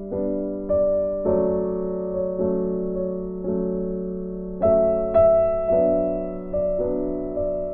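Background piano music: notes struck one after another, each ringing on and fading, with the loudest notes about two-thirds of the way in.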